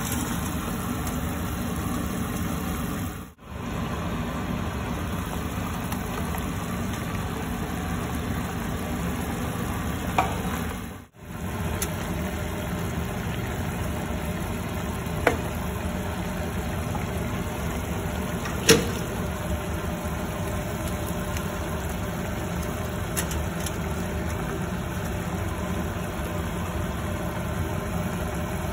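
Pork and wood ear mushrooms frying in a pan over a steady low hum, stirred with a wooden spatula, with a few sharp clicks of the spatula against the pan.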